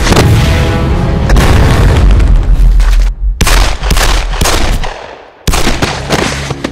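Action-film sound effects: heavy booms, then a quick run of about half a dozen pistol shots, with music underneath. The sound drops away briefly just after the shots and comes back with one more loud hit near the end.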